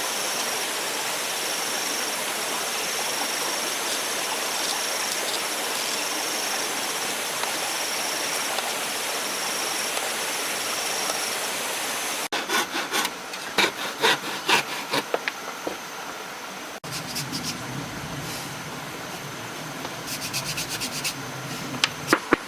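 Wood being worked by hand: a steady rubbing, scraping noise for about twelve seconds, then a run of light knocks and taps, with more taps near the end.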